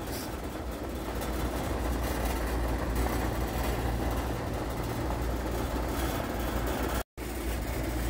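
Steady low rumble and hum of building HVAC air-handling equipment, with an airy hiss of air moving through ductwork. It drops out for a split second about seven seconds in.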